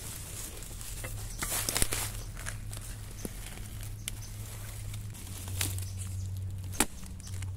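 Dry bamboo leaf litter rustling and crunching while bamboo shoots are cut and pulled out, with two sharp knocks of a long-handled digging spade striking a shoot's base, about two seconds in and near the end.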